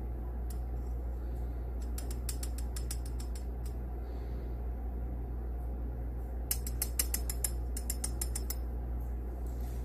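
Two runs of quick, light ticks, about two seconds in and again from about six and a half seconds, as a metal scoopula is tapped to sprinkle powder from a small container onto weigh paper on an analytical balance. A steady low hum runs underneath.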